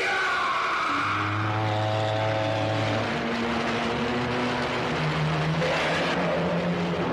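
Monster-film soundtrack: a man screaming at the start, then a loud rushing noise under low held tones that step from one pitch to another every couple of seconds.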